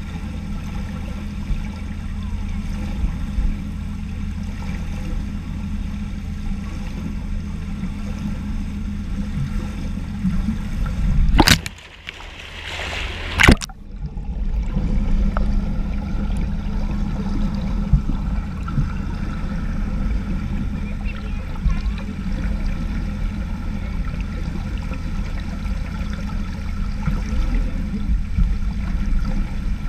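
Pool water heard through an underwater camera: a steady low hum, broken about a dozen seconds in by a sharp knock, a burst of churning water and bubbles, and a second knock as a butterfly swimmer passes overhead. After that comes a rougher rushing of turbulent water.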